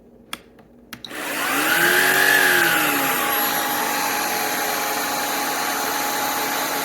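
Shark Rocket PowerFins cordless stick vacuum switching on: two short clicks, then about a second in the motor spins up, its pitch rising and easing back before settling into a steady high whine with a rush of air.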